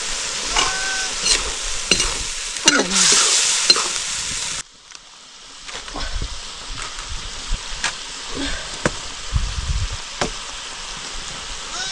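Toad-meat curry sizzling in a hot wok while a spatula stirs and clinks against the pan, with one louder surge of sizzle about three seconds in. The sizzle cuts off suddenly about four and a half seconds in, leaving quieter scattered knocks and handling sounds.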